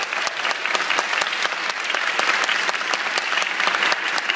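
Audience applauding steadily, a dense patter of many hands clapping at the end of a presentation.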